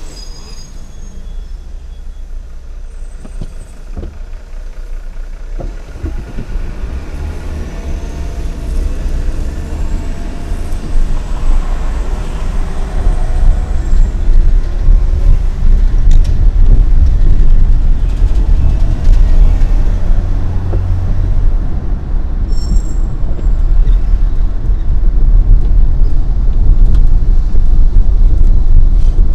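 Car cabin noise while driving: a low engine and road rumble that grows louder from about six seconds in.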